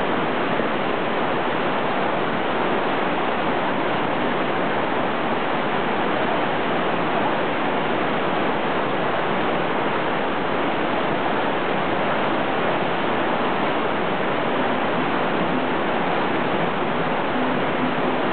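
Fast-flowing, swollen river water rushing past rocks and around the elephants' legs: a steady, even rush of water noise.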